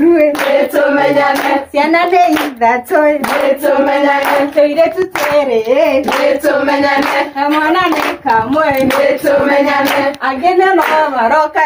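A group of women singing together in unison, with steady rhythmic hand-clapping.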